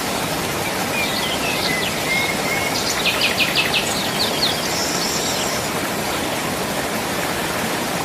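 Mountain stream water rushing over rocks in a steady rush, with a bird singing over it. The bird gives a gliding call about a second in, then a quick run of short high notes around three to four seconds in, and a brief high trill near five seconds.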